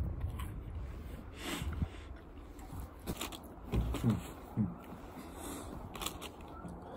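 A person chewing the last mouthful of a corn dog close to the microphone, with a breath about one and a half seconds in and a few short hummed sounds around four seconds in, over a low rumble.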